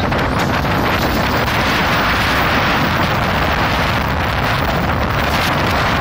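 Heavy wind of a sandstorm blowing hard across the microphone: a loud, steady rushing noise.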